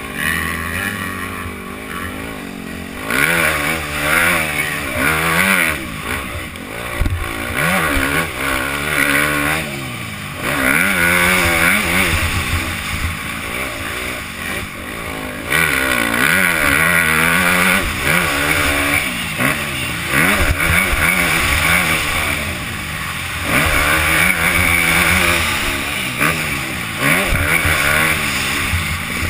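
Motocross bike engine revving up and dropping back again and again as the rider accelerates, shifts and backs off through the turns, with wind rushing over the helmet-mounted camera.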